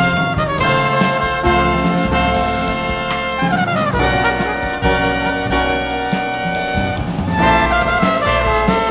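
Jazz nonet playing, with brass horns such as trumpet and trombone voiced in harmony over a bass line. The horn lines slide downward about halfway through and climb again near the end.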